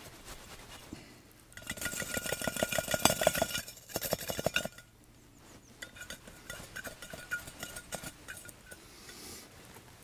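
Metal can and its wire bail handle clinking and rattling as the can is lifted and tipped, with a ringing metallic tone. It is loudest from about one and a half to five seconds in, then goes on as sparser clinks.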